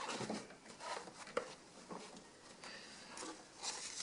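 Foam being pressed and stuffed into gaps by hand: soft, scattered rustling and scraping, with a brief sharp tick about a second and a half in.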